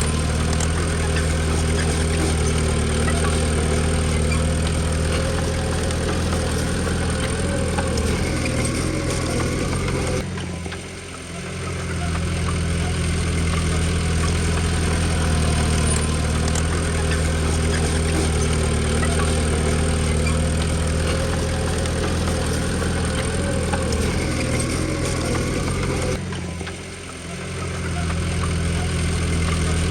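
Diesel engine of a Komatsu D20P bulldozer running steadily, with two brief drops in level about 10 and 26 seconds in.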